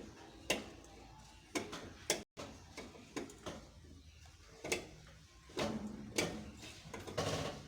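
Irregular clicks and knocks of metal tools and wheel parts being handled during a car tyre change, a few sharp taps a second at most, unevenly spaced.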